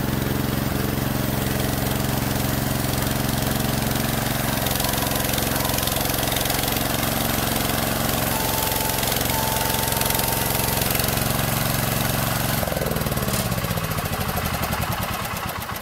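Ford LGT 145 garden tractor's engine running steadily as the loader bucket is worked into the plow's mounting lip, with a faint high whine for about two seconds midway; near the end the engine speed drops.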